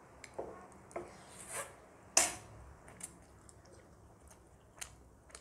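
Close-up eating sounds: forks clicking against plates and a metal tray, mixed with short mouth noises of noodles being eaten. The loudest knock comes about two seconds in.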